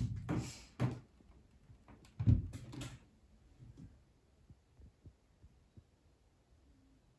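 Handling noises in the first second, then a heavy thump about two seconds in as the video recorder is set down on the wooden desk. A few faint clicks follow.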